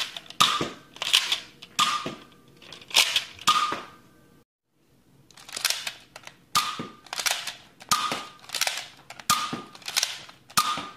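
Nerf Accustrike Quadrant dart blaster being primed and fired over and over: a run of sharp plastic clacks and spring snaps about every half second. The run breaks off briefly near the middle, then carries on.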